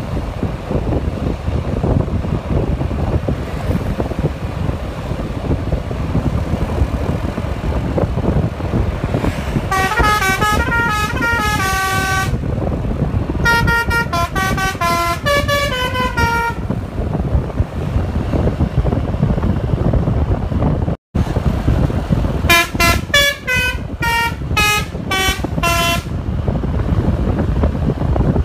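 Bus 'telolet' multi-tone musical horn playing quick stepping tune phrases three times: about ten seconds in, again at around thirteen seconds, and again after twenty-two seconds. A steady low rumble runs underneath.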